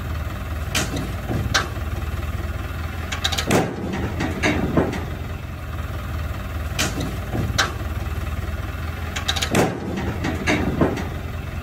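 Tractor engine running steadily while its front loader lifts a disc mower, with repeated sharp metal clanks and knocks from the swinging mower, some in quick clusters.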